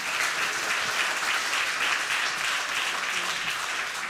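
Audience applauding: a steady round of clapping from a seated crowd.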